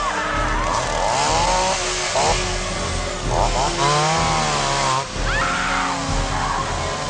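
Handheld belt sander motor running with a whining drone that wavers in pitch, mixed with a person screaming.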